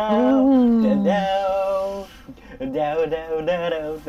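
A man singing a tune in long, bending held notes, breaking into shorter phrases about halfway through.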